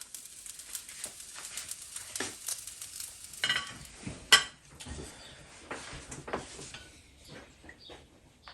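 Faint sizzling from a hot wok with scattered clinks and knocks of utensils and dishes, one sharp clink about four seconds in; the sizzle fades away near the end.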